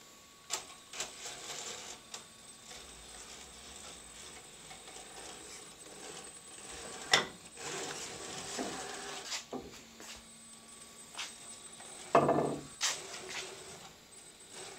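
Traxxas TRX-4 RC crawler running on a 3S battery, its electric motor and geared drivetrain whining faintly as it creeps over wooden slats and rock. Tyres and chassis knock and scrape on wood and stone, with a sharp knock about seven seconds in and a louder thump about twelve seconds in.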